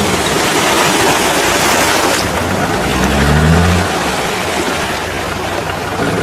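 Off-road 4x4 engine working under load, revving up briefly about three seconds in, over a loud steady rush of noise.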